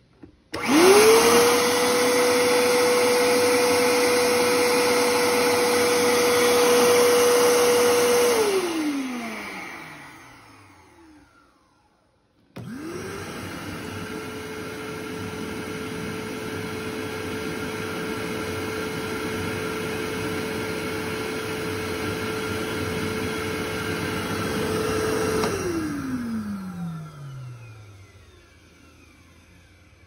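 A Ridgid wet/dry shop vacuum starts, runs steadily with a high motor whine for about eight seconds, then shuts off and spins down. A few seconds later a DeWalt wet/dry shop vacuum starts, runs noticeably quieter with a slightly lower whine for about thirteen seconds, and spins down the same way.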